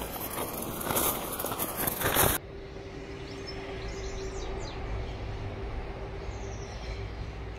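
Dry straw mulch rustling and crackling as it is handled and spread around seedlings, cut off sharply about two seconds in. Then quieter outdoor ambience: a low steady rumble of distant traffic, a faint steady hum and a few bird chirps.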